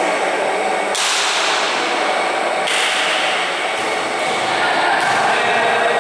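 Pickup basketball in an echoing gym: sharp smacks of the ball and players' feet on the court, about a second in and again near the three-second mark, over a steady wash of hall noise.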